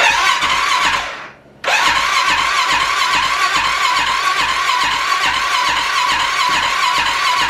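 Electric starter cranking the Arctic Cat 650 H1's single-cylinder four-stroke engine with the choke on, an even whine with a regular chug of compression strokes. A short crank winds down about a second in, and after a brief pause the starter cranks again steadily. The engine turns over without catching for lack of spark.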